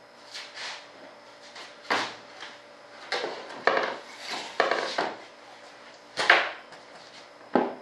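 Cut wooden boards being handled, slid and set down on the workbench: about a dozen irregular wooden knocks and short scrapes, the loudest about six seconds in.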